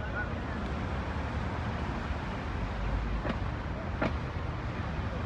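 Cars rolling slowly past with a steady low rumble of engines and tyres, in an open street-traffic ambience. Two faint short clicks come about three and four seconds in.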